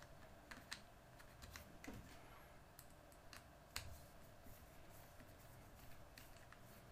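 Faint, irregular small clicks and ticks of a screwdriver turning small screws into a 3D-printed plastic frame while the parts are handled, with one sharper click about halfway through.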